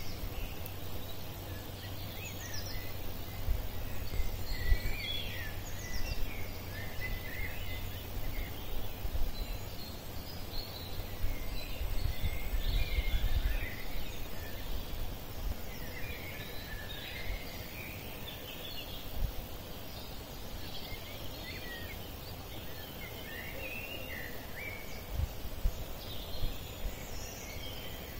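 Woodland birds singing and calling: many short chirps and whistles, overlapping. Underneath is a low rumble that comes and goes in gusts, like wind on the microphone.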